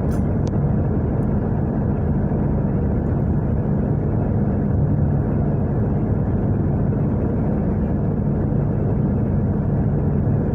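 Steady car cabin noise while driving: a low engine and road drone with no let-up.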